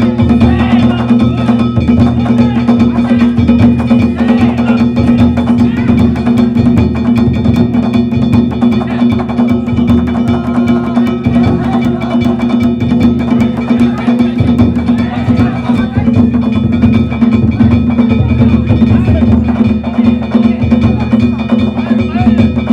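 Danjiri float's narimono ensemble playing: drums beaten in a fast, unbroken pattern with metal gongs ringing over them, loud and steady throughout.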